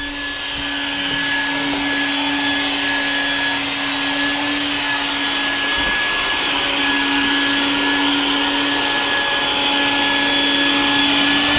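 Vacuum cleaner running steadily: a constant motor hum and a higher whine over a rushing hiss, getting a little louder in the first second or two.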